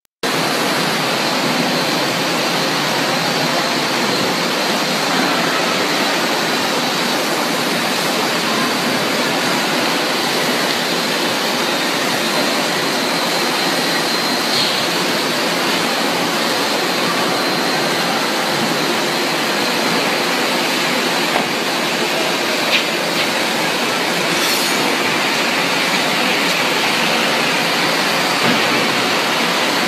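Steady, even roar of factory machinery around a multi-deck veneer dryer, with a faint high whine in the first half and a few light knocks about two-thirds of the way through.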